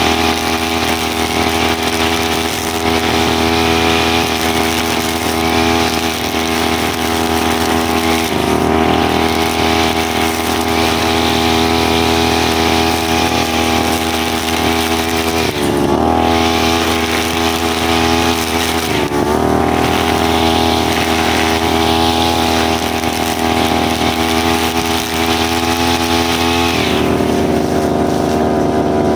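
Brushcutter's small engine running at a high, steady speed while sweeping dry leaves. It dips briefly three times and settles at a different speed near the end.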